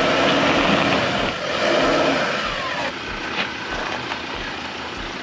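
Car engine revving hard as the bogged vehicle tries to pull out of the mud, easing back about three seconds in.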